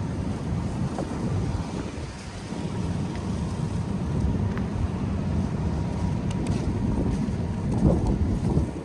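Wind buffeting the microphone in a snowstorm: a gusty low rumble that rises and falls.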